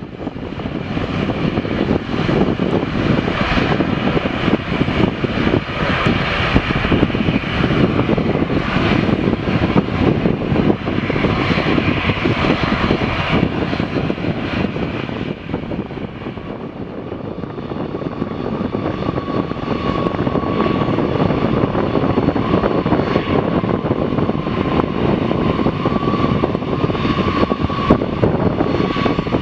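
Airbus A340-300's four CFM56-5C turbofan jet engines at high power during take-off: a loud, continuous jet rumble. About halfway through, a steady whine joins it and holds.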